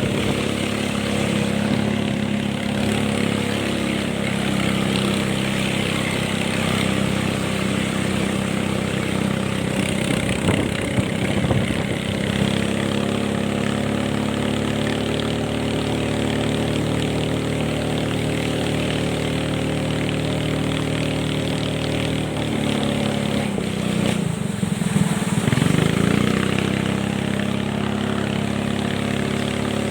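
Small boat's engine running steadily at speed. About 23 seconds in it eases off, its pitch dropping, then revs back up within a couple of seconds.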